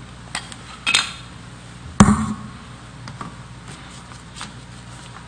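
Handling noise at a desk: scattered clicks and light knocks as papers are passed over and handled, with one sharp knock with a low thud about two seconds in, the loudest.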